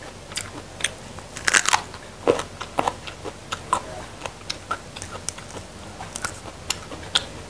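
Raw green vegetable stems being stripped of their leaves and eaten raw, close to the microphone: an irregular string of crisp crunches and snaps, loudest and densest in the first few seconds.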